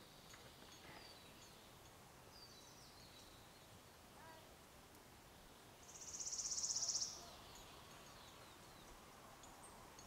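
Quiet outdoor ambience with a few faint, high, falling bird chirps. About six seconds in, a bird gives a loud, very fast, high-pitched trill that swells for about a second and then stops sharply.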